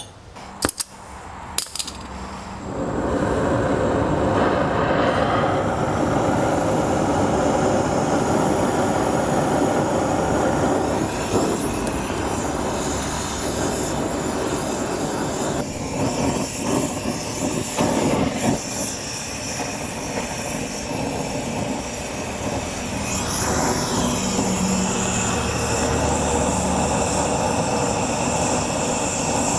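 Oxyacetylene torch flame hissing steadily as it heats a seized lawnmower blade adapter to free it. A few clinks of metal tools come first, and the flame noise comes in about two and a half seconds in.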